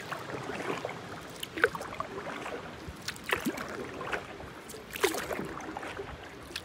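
Canoe paddle strokes on calm water: four strokes about every second and a half, each a splash of the blade with dripping and small trickles of water between them.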